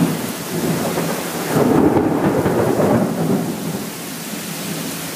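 Heavy downpour with a rumble of thunder that swells about a second and a half in and dies away after about three seconds, leaving the steady hiss of pouring rain.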